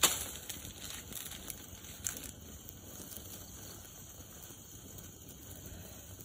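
Open fire of dry sticks crackling, with a sharp crack right at the start and a few smaller pops over the next two seconds, then a steady hiss.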